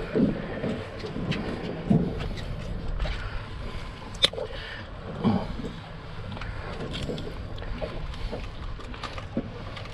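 Low steady rumble of a boat's engine idling, with a few dull knocks and one sharp click about four seconds in as a hooked mahi-mahi is worked free with pliers on the deck.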